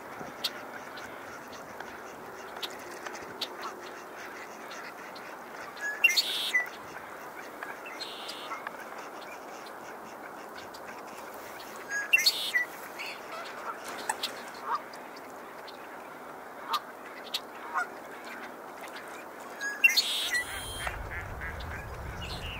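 Male red-winged blackbird singing its conk-la-ree song three times, roughly every six to eight seconds: each a short lead-in note followed by a harsh, buzzy trill. Scattered short call notes in between, and a low rumble comes in near the end.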